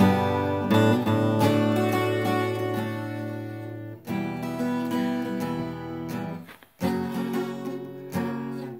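Acoustic guitar playing an instrumental intro: chords strummed and left to ring, with a fresh strum every second or so and a brief pause about two-thirds of the way through.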